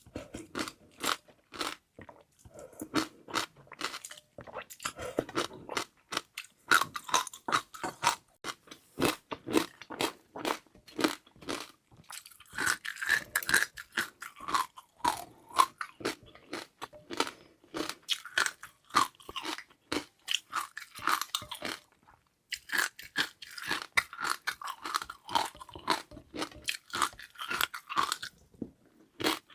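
Close-miked chewing of crunchy seaweed jelly pearls: rapid crunches and mouth clicks, with a few short pauses.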